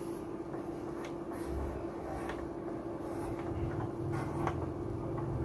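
Handling noise from an Ashley 404i mixer: hands rubbing and lightly tapping over its knobs, faders and metal body, a few soft clicks and rubs over a low rumble, with a steady faint hum.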